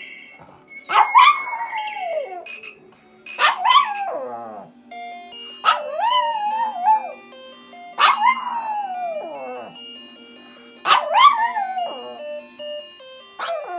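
Spitz dog howling along to an alarm clock's electronic melody: about five long howls, each starting high and sliding down in pitch, roughly every two and a half seconds, with a sixth starting at the end, over the beeping tune.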